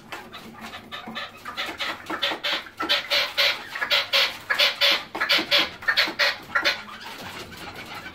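Red-legged partridge calling: a rapid run of short repeated notes that grows louder through the middle and stops about seven seconds in.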